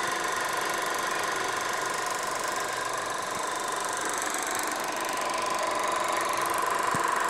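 Eiki 16mm sound projector running: a steady mechanical noise from its motor, fan and film transport, with a steady high hum that grows a little stronger in the second half.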